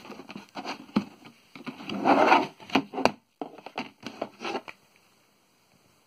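Plastic CD jewel case being handled: a run of small clicks and taps as it rubs and slides on cardboard, with a longer, louder scrape about two seconds in. The handling stops a little before five seconds in.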